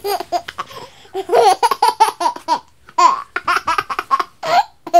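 Baby laughing in a run of short bursts, with a brief pause a little over halfway through.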